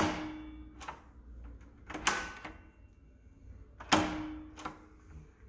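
Lever handle and latch of a commercial door lockset being worked: three sharp metallic clacks about two seconds apart, each with a short ringing tail, and fainter clicks between them. The inside lever is being operated, which releases the lock.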